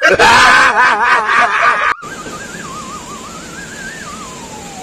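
Edited-in sound effects: a loud, wavering, wailing sound for about two seconds that cuts off abruptly. It is followed by a single quieter whistle-like tone that wobbles and slowly slides downward.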